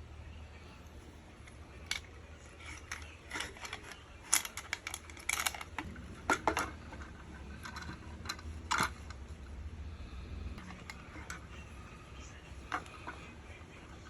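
Hands handling and opening a blind box and its packaging: irregular clicks, taps and short rustles of cardboard and plastic, busiest in the middle, over a low steady hum.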